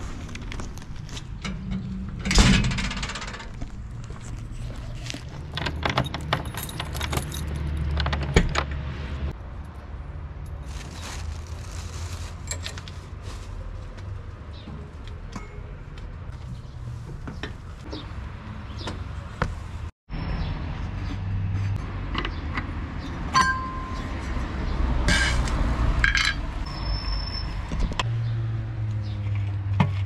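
Handling noises from the operator at a backhoe loader: keys jangling and a run of sharp clicks and knocks from the cab door and fittings, over a low steady rumble.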